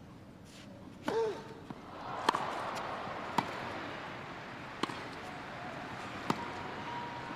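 Tennis ball struck by racquets in a baseline rally on a grass court: a serve about a second in, then four more sharp hits roughly a second and a half apart, over steady crowd noise.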